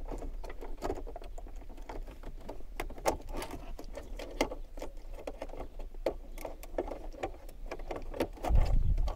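Irregular small clicks, taps and rattles of plastic dashboard switches and wiring connectors being handled and worked out of their sockets in a Peugeot 306's centre console, with a dull bump near the end.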